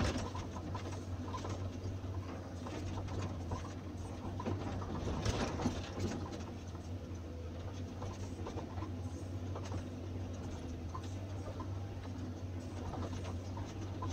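Excavator's diesel engine running steadily, heard from the cab, with scattered scraping and rattling clicks as the bucket digs into loose limestone rubble; a louder scrape about five seconds in.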